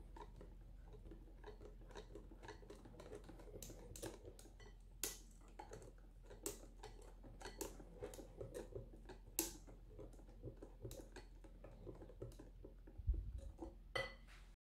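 A metal wire whisk stirring melted chocolate and cream in a glass bowl: soft wet swishing with irregular light clicks of the tines against the glass. A dull thump near the end.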